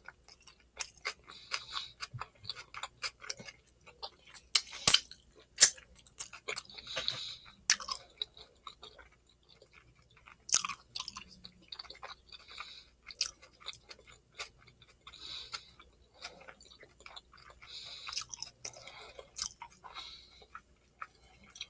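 A person chewing a mouthful of Philly cheese steak sub close to the microphone: irregular small mouth clicks, with a quieter pause about halfway through.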